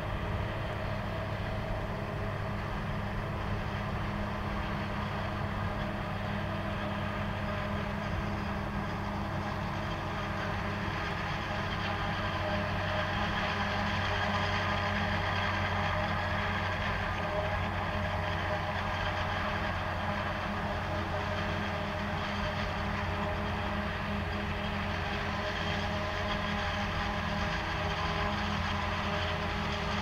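Claas self-propelled forage harvester and its tractor-drawn trailer running steadily while chopping maize, a continuous engine drone with steady whining tones above it, swelling slightly in the middle.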